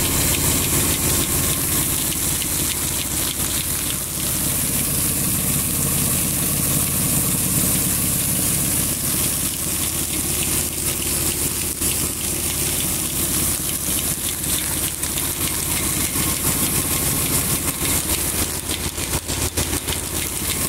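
Stone grain mill running steadily, grinding cereal grain into meal: a constant hum with a steady hiss.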